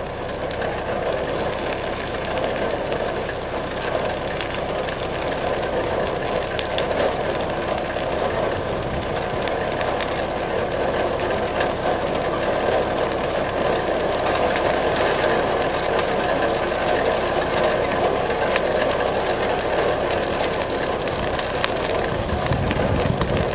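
Steady drone of an engine-driven fire pump with a hiss over it, holding several even tones, with faint scattered crackles of burning brush. A low rumble rises near the end.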